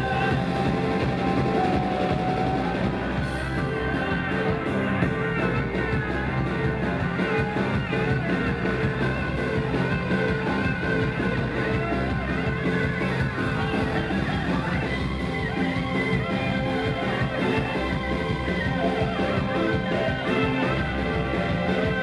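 Live rock band playing loud, with electric guitars, bass guitar, drums and keyboards.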